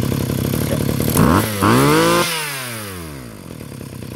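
Small brush cutter engine running at a steady idle, then revved up hard twice about a second in. The throttle is then released and the revs fall away slowly.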